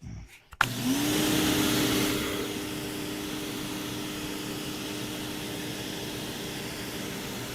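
Corded electric pressure washer with a brushed motor starting up about half a second in, its hum rising quickly to a steady pitch, then running steadily under load with the hiss of the water jet from a 15-degree nozzle.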